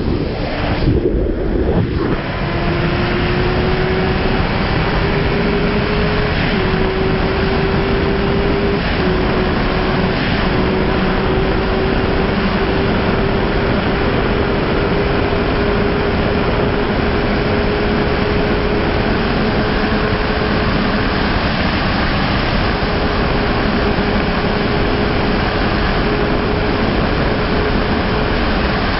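2001 Honda CBR600F F4i's inline-four engine at high revs under full throttle, buried in heavy wind rush at autobahn speed. Its note climbs in pitch with a few small drops in the first ten seconds, then holds almost steady as the bike nears its top speed of about 250 km/h.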